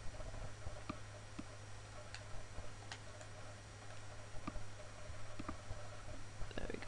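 Computer mouse clicking, a few sharp clicks at irregular intervals, over a steady low electrical hum.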